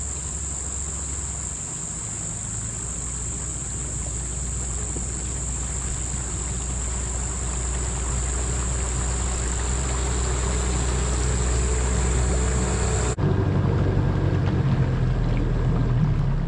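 Small dinghy's outboard motor running at low speed, drawing nearer and growing steadily louder, over a constant high-pitched insect drone. About 13 seconds in the sound cuts abruptly to the same motor heard close up from on board, with no insect drone.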